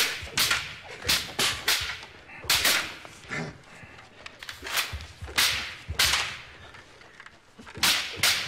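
Wooden practice swords (bokken) swishing through the air in quick sparring swings, a dozen or so sharp swishes at irregular spacing.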